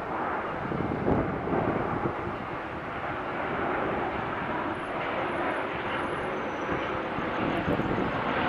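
Jet engines of an Airbus A321 airliner on its arrival approach, passing overhead as a steady rushing noise.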